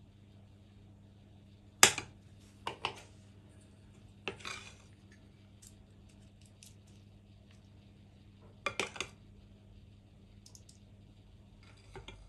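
Metal spoon clinking and scraping against a glass mixing bowl while scooping cake batter: a sharp clink about two seconds in, a brief scrape near the middle, and a quick run of three clinks later, over a faint steady hum.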